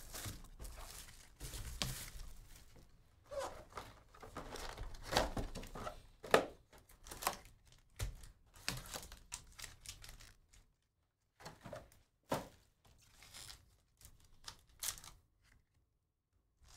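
Packaging of a trading-card hobby box being torn open and crinkled: the box's wrapping and foil card packs ripping and rustling in irregular crackles, with a few sharper snaps and knocks, the loudest about six seconds in.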